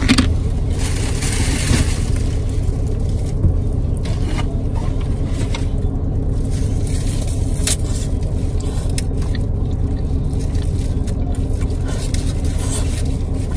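Steady low rumble, like an idling car heard from inside the cabin, with plastic rustling and scraping as a takeout mac and cheese container is opened, and a few short clicks.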